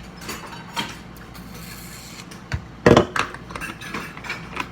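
Rummaging through kitchen containers and lids: scattered clicks, light scrapes and knocks, with one loud knock about three seconds in.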